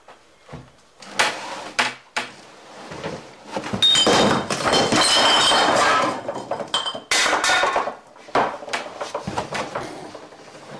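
Glass beer bottles clinking and knocking against a wooden tabletop, with thumps and rustling. The densest clatter of glass comes about four seconds in and lasts a couple of seconds, with a ringing clink in it.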